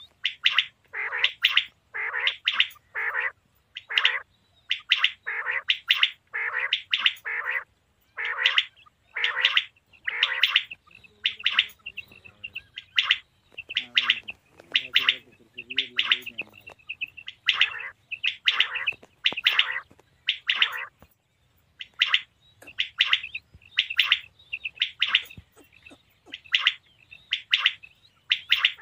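Male common quail calling: short, sharp notes repeated over and over in quick runs. A lower, rougher sound comes about halfway through.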